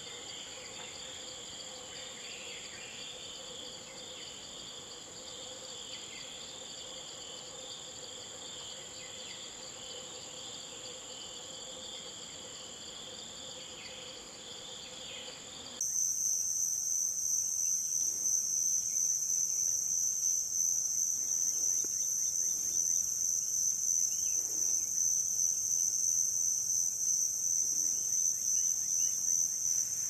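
Insect chorus, steady and high-pitched, made of several even shrill tones. About halfway through it switches abruptly to a louder, higher single-pitched insect drone.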